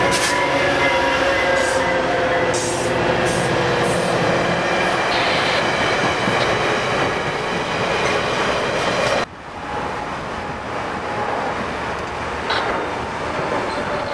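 VIA Rail F40PH-2 diesel locomotive and its stainless-steel Budd passenger cars passing close by, a loud steady rumble with engine tones and rail noise. About nine seconds in it cuts abruptly to a quieter passenger train farther off.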